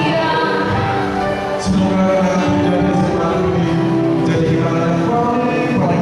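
A band playing a pop song with singing.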